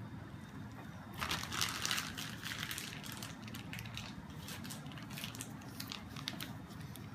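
Plastic piping bag crinkling and rustling as it is squeezed and handled while piping ganache. The crinkling is loudest for about two seconds starting a second in, then thins to scattered light crackles.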